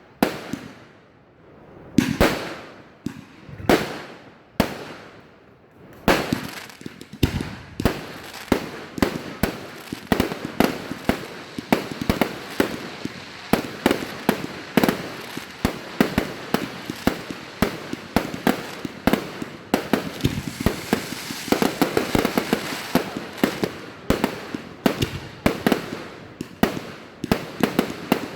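Fireworks going off. A handful of single sharp bangs about a second apart, then from about six seconds in a dense, rapid barrage of bangs and crackling.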